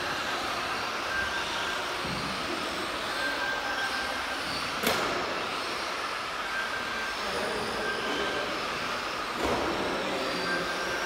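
Electric 1:10-scale Tamiya TT01E RC trucks racing round a track, their motors whining and changing pitch as they speed up and slow down. Short beeps at one pitch come and go, and a sharp click comes about five seconds in.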